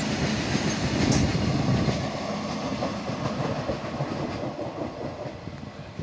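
Loaded coal wagons of a freight train rolling past, their wheels clattering on the rails. The sound grows fainter through the second half as the end of the train passes and moves away.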